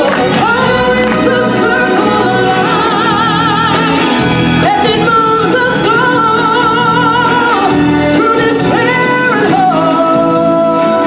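Stage show singing with full musical accompaniment: a lead voice holds long notes that waver, over a steady band backing.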